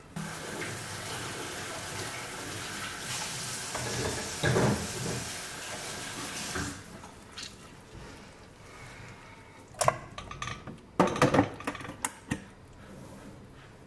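A steady hissing rush that cuts off sharply about two-thirds of the way through. Near the end, a spoon knocks and scrapes against a frying pan in a quick run of clatters as sausage slices in sauce are stirred.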